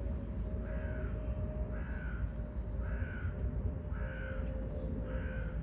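A crow cawing five times in an even series, about one caw a second, over a steady low background rumble.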